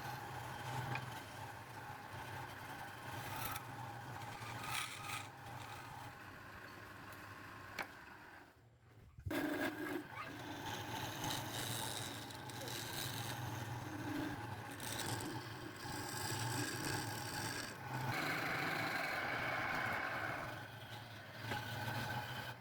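Wood lathe running with a steady motor hum while something scrapes against the spinning wooden workpiece. The sound drops out briefly about nine seconds in.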